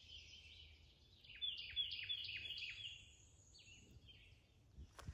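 Morning birdsong from several birds at once. A bit over a second in, one bird gives a run of about five quick falling notes, while a thin high-pitched song runs over it and other birds chatter throughout.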